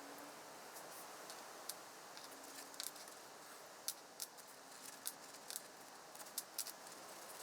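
Faint, irregular light clicks and ticks of small kit parts and packaging being handled, over a low steady hiss.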